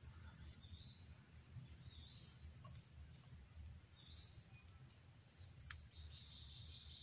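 Faint outdoor ambience: a steady high insect drone, with three short bird chirps in the first two-thirds and a single sharp click near the end.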